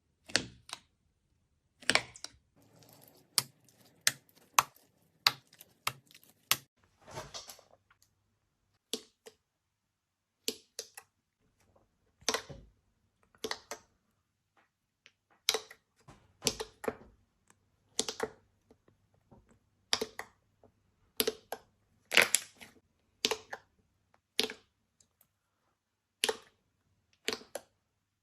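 Slime being pressed and poked, making sharp clicky pops of trapped air about once a second, with a run of fine crackling in the first few seconds.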